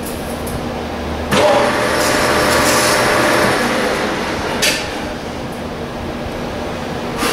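Metal lathe running with a boring bar cutting inside the spinning metal part. The cutting noise rises suddenly about a second in and eases off a few seconds later, over the steady hum of the lathe.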